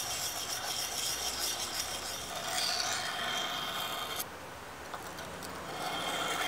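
Spring-steel knife blade being honed by hand on a wet Norton whetstone, with steel scraping across the stone in repeated strokes. The scraping drops off abruptly about four seconds in and picks up again near the end.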